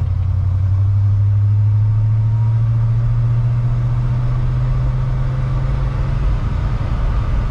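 1975 Ford F-250's 390 FE V8 running, heard from inside the cab as the truck drives along: a steady low drone.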